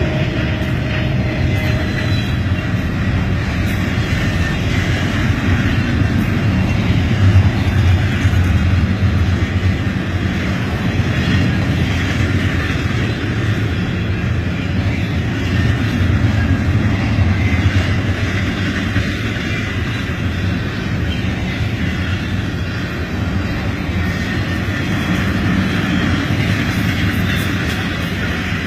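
Fast Union Pacific intermodal train passing at speed: a steady, loud rumble and rush of wheels on the rails as the cars go by, with no letup.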